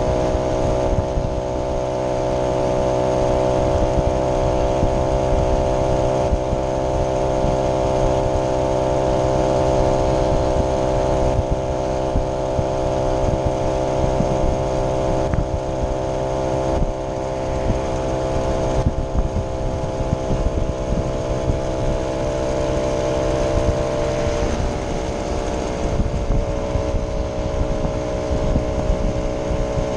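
Vintage moped's small two-stroke engine running steadily at cruising speed, heard from the rider's seat, over a low wind rumble. Its pitch drops a little about 25 seconds in.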